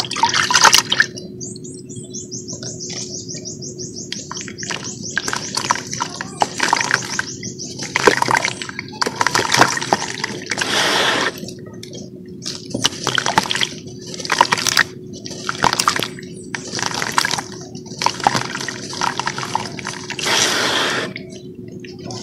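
Hands swishing and splashing through water in a large plastic tub, in irregular bursts of sloshing, over a steady low hum. A rapid high trill sounds from about one to four seconds in.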